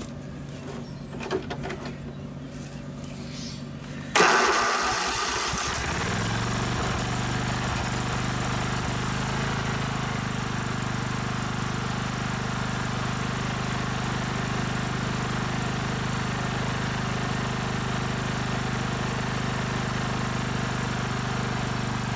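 16 hp Kohler engine of a Simplicity riding mower, first start on a newly fitted carburetor: it catches suddenly about four seconds in, settles within a couple of seconds and then runs steadily.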